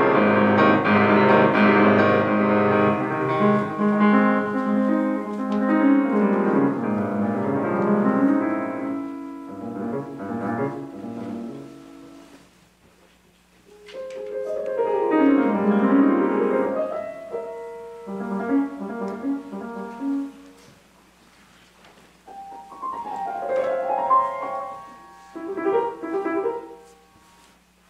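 Solo piano playing: full, sustained chords and runs at first, then quieter separate phrases with short pauses between them.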